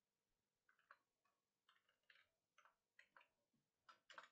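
Faint computer keyboard typing: about a dozen short key clicks at an uneven pace.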